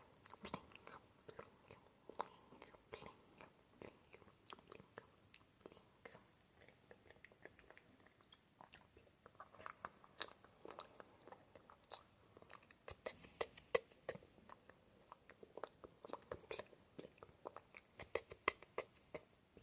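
Close-miked ASMR mouth sounds: faint, irregular lip and tongue clicks and smacks, with quick runs of clicks now and then, dry mouth sounds made to sound wet.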